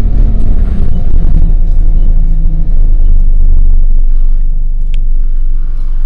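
Bus engine and road rumble heard from inside a moving bus: a steady, loud low drone with an engine note that shifts in pitch partway through.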